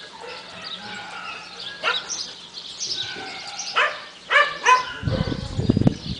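A dog barks four short, sharp times, the last two close together and the loudest, while small birds chirp throughout. A low rumbling noise comes in near the end.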